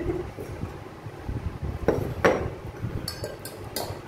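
A saucer and spoon clink against a drinking glass: two sharp clinks about two seconds in, then a run of quick light taps as a spoon starts stirring chili and turmeric powder into the water in the glass.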